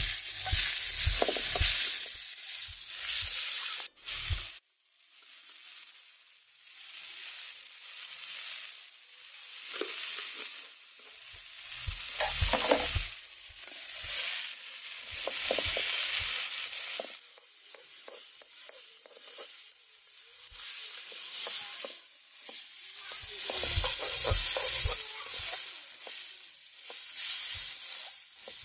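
Bhaji saag (leafy greens) stir-frying in a kadai, with a sizzling hiss that swells and fades. A metal spatula scrapes and knocks against the pan in bouts near the start, around the middle and again after about twenty-three seconds.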